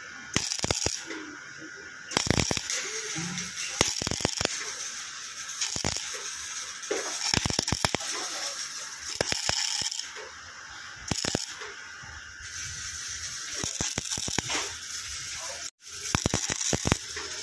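Electric arc welding on a tractor's broken steel bracket: the arc crackles in bursts of a second or two, breaking off and being struck again several times.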